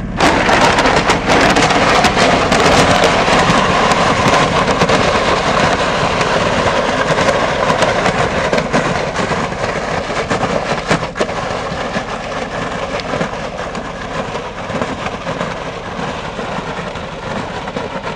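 Riding lawn mower engine running as a television set is dragged over a gravel driveway behind it: a loud crunching, crackling scrape of stones that starts suddenly and slowly fades as the mower moves away.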